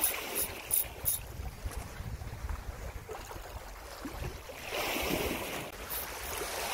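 Sea wash against shore rocks, swelling for a second or so about two-thirds of the way in, over a steady low rumble of wind on the microphone. A few faint ticks sound in the first second.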